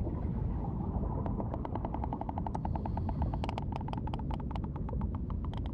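Sperm whale clicks heard underwater: a train of rapid, evenly spaced clicks, about eight a second, starting about a second in and stopping just before the end, over a steady low underwater rumble.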